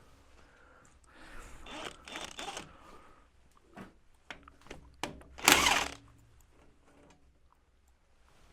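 Tools working on a tractor engine being taken apart: scattered metallic clicks and knocks, short rasping spells, and one loud rasp lasting about half a second, about five and a half seconds in.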